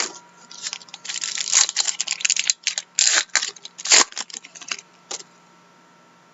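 Trading cards being handled: a quick run of crisp rustles and clicks that stops about five seconds in.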